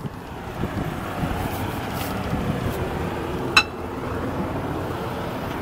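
A single sharp metallic clink about three and a half seconds in, briefly ringing, over steady outdoor vehicle and traffic noise.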